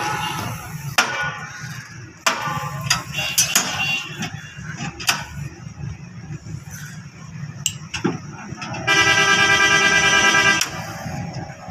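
Sharp metallic knocks and clanks from work on a steel concrete-pipe mould, over a low steady machinery rumble, with voices near the start. About nine seconds in, a loud steady horn blares for under two seconds and then stops.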